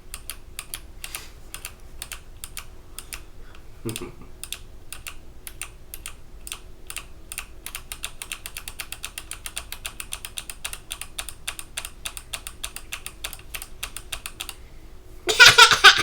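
Hexgears Supernova mechanical keyboard with clicky Kailh BOX Jade switches being typed on: a steady run of sharp clicks that gets quicker in the second half. Near the end the clicks stop and a loud burst of a child's laughter breaks in.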